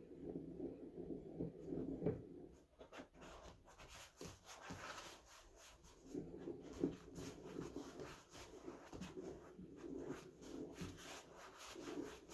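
Rubbing and rustling, with many small crackles and clicks that grow busier after about two seconds in.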